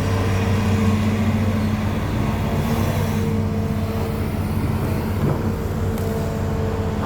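Hitachi Zaxis 210F excavator's diesel engine running steadily under work, with an even hum.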